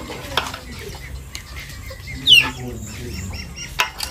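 Chickens clucking, with one loud short high call falling in pitch a little over two seconds in. A sharp knock comes near the start and another near the end.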